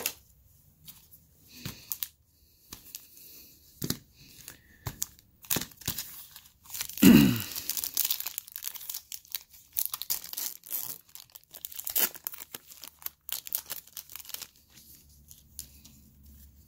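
Foil wrapper of a Panini Momentum NFL trading-card pack being torn open and crinkled by hand. It makes a run of short crackles, with the longest, loudest tear about seven seconds in, and the crinkling dies away near the end.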